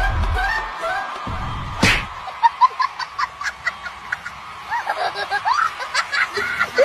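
Music with a heavy beat for about two seconds, then a long run of short, high, squeaky snickering laughs.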